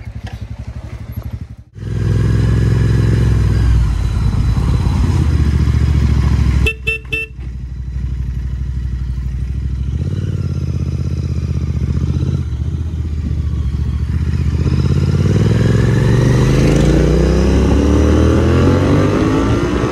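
Royal Enfield Continental GT 650 parallel-twin engine running through aftermarket Red Rooster exhausts, loud as the motorcycle pulls away and rides. About seven seconds in there are two short horn toots. In the last few seconds the engine note climbs steadily as the bike accelerates.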